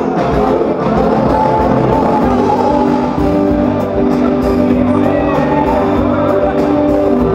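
Loud music with a steady beat and singing.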